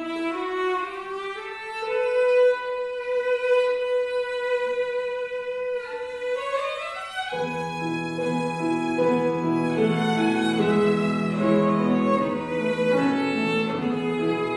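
Violin holding one long note with the piano silent, then sliding upward about six seconds in; piano accompaniment comes back in about seven seconds in and the violin carries on its melody over the chords.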